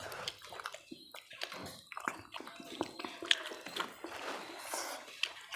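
Close eating sounds during a mukbang: chewing and mouth sounds with many small, irregular clicks and taps.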